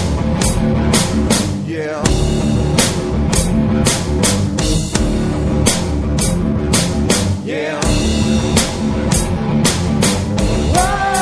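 Live rock band playing with a drum kit keeping a steady beat of cymbal hits under bass and guitars.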